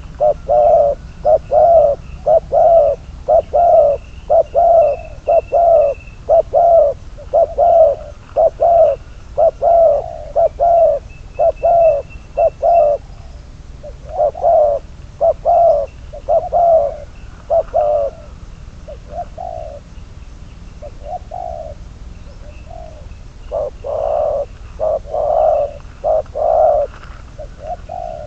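Spotted dove cooing in long runs of loud, evenly repeated low notes, about two a second. The notes go softer and sparser for a few seconds past the middle, then come back strong near the end. Small birds chirp faintly above them.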